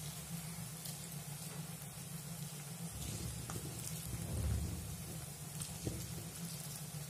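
Cabbage and besan pakoras frying in hot refined oil in a kadai: a steady crackling sizzle of bubbling oil with small pops. A low rumble swells about four seconds in.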